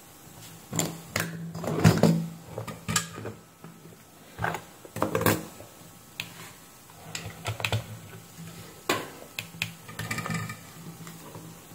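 Irregular clicks and taps of hands working on a workbench: a small circuit board being handled and set down, and the buttons of a digital multimeter being pressed. A faint low hum runs underneath.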